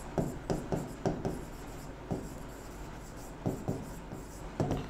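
Marker pen writing on a whiteboard: short scratchy strokes and taps, a cluster of them in the first second and a few more near the end.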